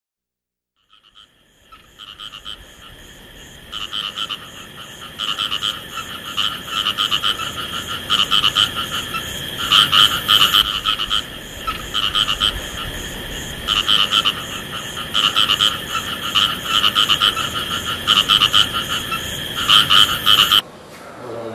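A chorus of frogs calling: many repeated, pulsed croaks overlapping. It fades in over the first couple of seconds and cuts off suddenly near the end.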